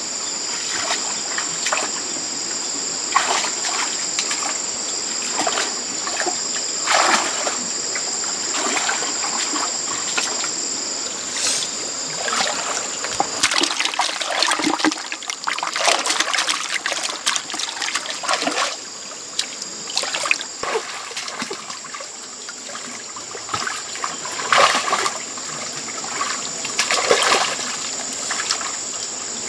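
Shallow muddy water splashing and trickling as hands grope through it and fish are tipped into a bucket of water, with irregular splashes, busiest around the middle. A steady high thin whine runs underneath.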